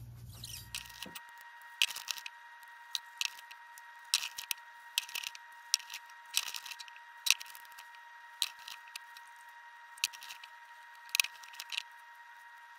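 Vinyl sticker sheet crackling and clicking in irregular sharp snaps as the stickers are peeled off their backing and pressed onto a bisque-fired stoneware cup, over a faint steady high hum.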